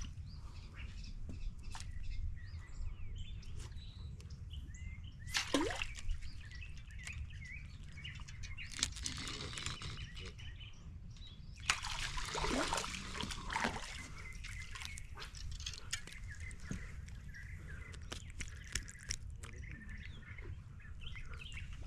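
Small birds chirping and twittering in the background, with three short bursts of splashing water, the longest in the middle.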